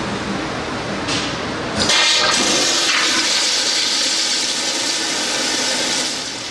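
Metcraft stainless steel high-efficiency toilet flushing through its 1.28 gallon-per-flush valve: a sudden rush of water starts about two seconds in, runs for about four seconds, then drops away.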